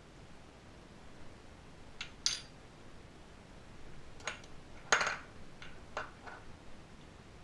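A metal spoon clinking and tapping against a small ceramic bowl and cup, about seven short separate clinks, the loudest about five seconds in.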